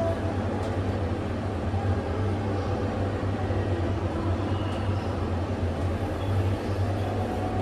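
Heights glass elevator car travelling between levels, a steady low hum of the drive and the moving car.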